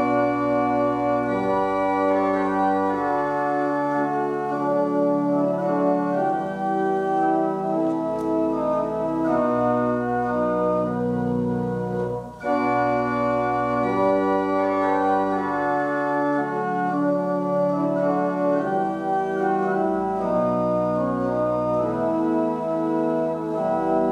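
Church pipe organ playing a hymn in slow, sustained chords, with a brief break between phrases about halfway through.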